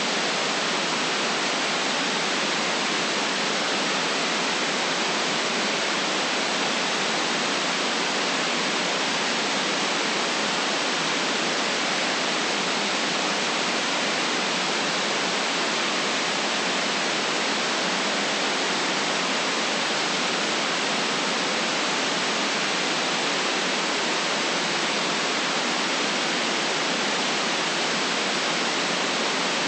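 Steady generated white noise: an even, unchanging hiss with no deep bass and no events in it.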